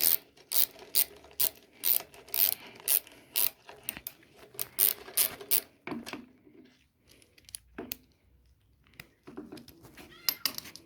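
Socket ratchet wrench being worked on a nut, its pawl clicking in repeated strokes about two a second, then pausing and clicking a few more times near the end.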